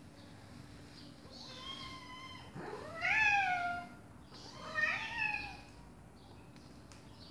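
Domestic cats meowing: a softer high meow about one and a half seconds in, then two louder meows that rise and fall in pitch around three and five seconds in, the first of these the loudest. A faint steady low hum runs underneath.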